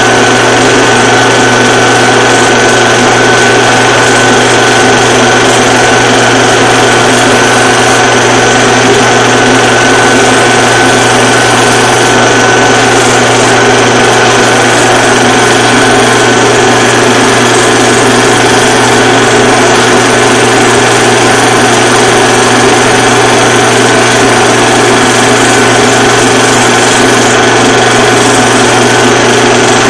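Film projector running: a loud, steady mechanical whirr with a constant hum and a thin high whine, unchanging throughout.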